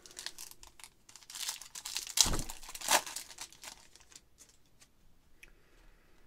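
Shiny foil wrapper of a 2023 Stadium Club baseball card pack being torn open and crinkled by hand, with two sharp rips about two and three seconds in, then fading to faint rustling.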